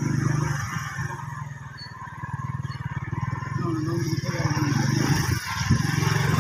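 Livestock lowing, deep moos, over a steady low rumble.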